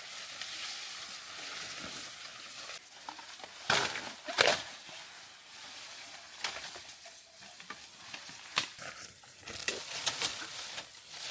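Rustling through forest undergrowth, with a steady hiss for the first three seconds that stops abruptly, then scattered sharp snaps and cracks of stems while bamboo shoots are being gathered.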